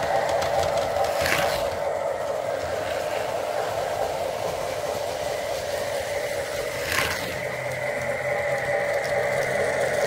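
Lionel O gauge model train rolling on three-rail tube track, its wheels making a steady mechanical rumble. There are two sharp clicks, about a second in and about seven seconds in, and a thin steady whine joins in during the second half.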